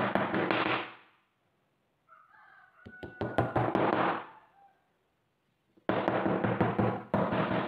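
Workshop power tool cutting wood in bursts of a second or two, its motor hum under a rasping noise, with knocks as the work is handled between cuts.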